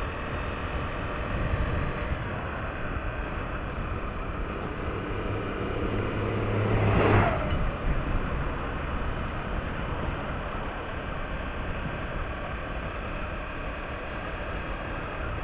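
Motorcycle engine running steadily while riding, with road and wind noise. About seven seconds in, a brief louder whoosh with a low hum swells over it and fades.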